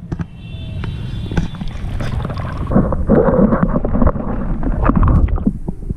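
Water splashing and churning around the camera, over a low rumble. It gets louder and busier, with many small clicks, from about three seconds in until a little after five.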